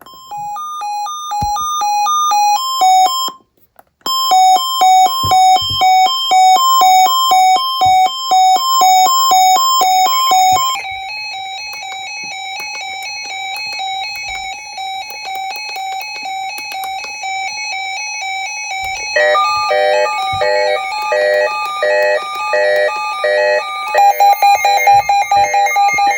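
Several emergency weather alert radios sounding their alarm sirens together: electronic beeps pulsing at two or three fixed pitches, about two a second. More radios' alarms join in about ten, nineteen and twenty-four seconds in, stacking into a denser clash of tones, with a brief cut-out near the start.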